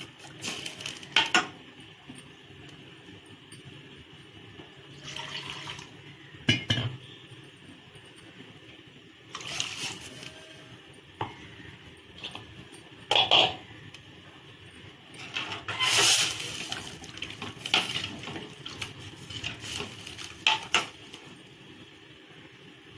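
Kitchen utensils clinking and knocking against a cooking pot about half a dozen times at irregular intervals, with a few short stretches of liquid splashing or being poured.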